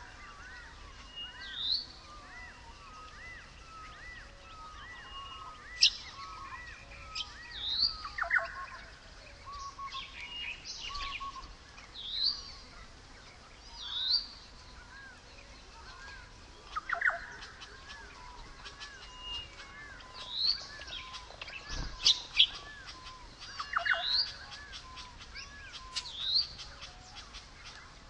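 A chorus of wild birds calling: repeated short rising whistles, a steady patter of small chirps, and a few louder sharp calls every few seconds.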